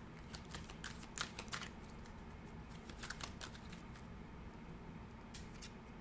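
Tarot cards being handled by hand: a scatter of light clicks and taps, bunched in the first second and a half and again about three seconds in.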